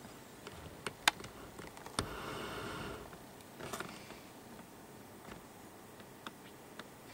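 Quiet handling noise close to the microphone: a few sharp clicks about a second in, then a breathy hiss lasting about a second, and faint ticks afterwards.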